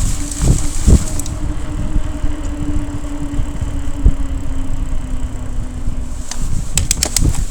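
Wind buffeting the microphone during a ride through city traffic, with a steady vehicle engine hum from about one second in until about six seconds, and a few sharp clicks near the end.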